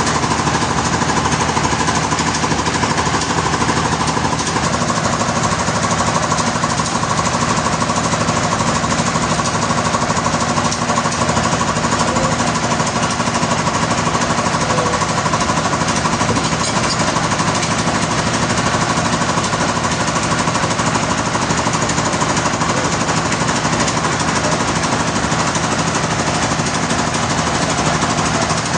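Sawmill machinery running steadily and loudly: an engine-driven log saw, with a steady hum and a rapid rattle throughout. Its tone shifts slightly about four seconds in.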